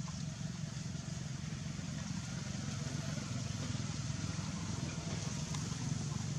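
An engine idling steadily: a low, even drone with a fast pulse.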